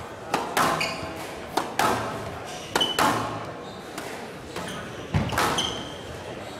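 Squash ball being hit back and forth: about four pairs of sharp smacks, racket striking the ball and the ball hitting the wall a fraction of a second later, each echoing briefly in a large hall.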